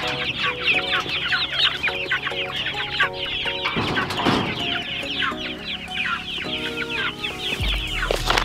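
Young layer pullets peeping inside a chicken tractor, a constant stream of many short, falling chirps. A brief rustling noise about four seconds in.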